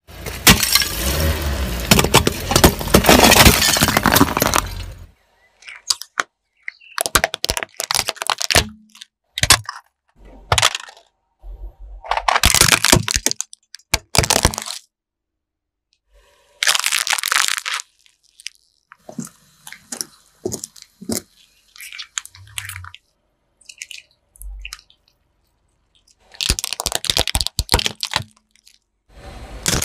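Car tyre crushing brittle objects such as a ceramic figurine, a clay pot and plastic toys: a series of cracking and crunching bursts, the longest and loudest lasting about five seconds at the start. The bursts are cut off abruptly and separated by dead silence.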